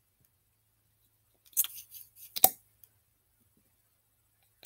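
Near silence for about a second and a half, then hands handling small plastic objects: short rustles and a sharp click about two and a half seconds in.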